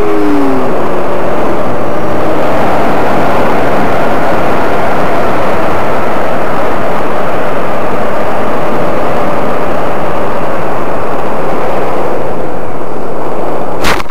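Loud, steady rushing roar with a faint whine that wavers in pitch, like wind blasting the microphone over a running motor; it cuts off suddenly near the end with a couple of clicks.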